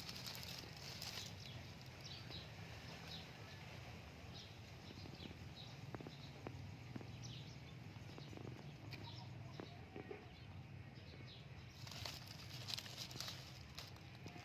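Live snakehead fish wriggling and flopping against each other in a plastic crate: faint, scattered wet slaps and patters, livelier about twelve seconds in.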